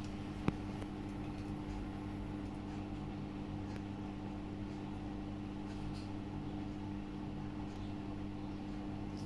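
Samsung WW80R421HFX/LE washing machine running with a steady low hum, and a single sharp click about half a second in.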